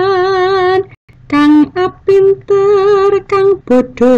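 A woman singing a Javanese macapat verse in tembang Pangkur, holding long notes with a wavering vibrato. A short breath about a second in breaks the line before shorter sung syllables.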